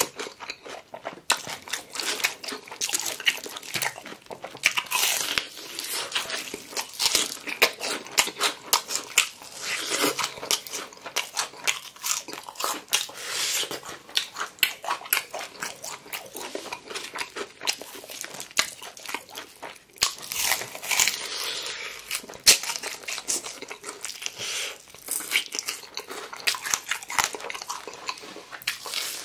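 Close-miked chewing of crispy fried chicken: a dense run of sharp, irregular crunches as the fried batter breaks between the teeth.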